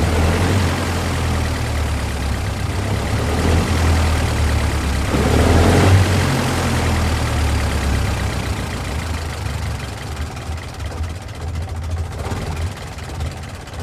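Car engine idling with a steady low rumble, swelling louder for a moment about five to six seconds in, then settling back and slowly fading.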